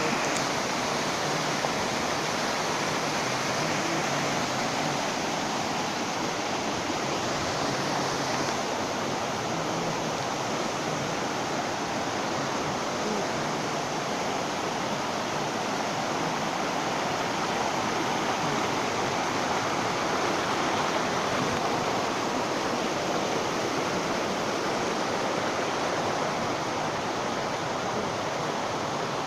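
Waterfall: a steady rush of falling water that keeps on without letup.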